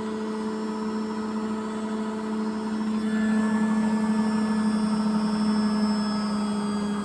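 Beko washing machine drum and motor running down with a steady hum after being switched off from a 200 rpm service-mode spin with no load. The drum's spider is slightly worn, with one arm broken, but the slowdown sounds normal to the owner.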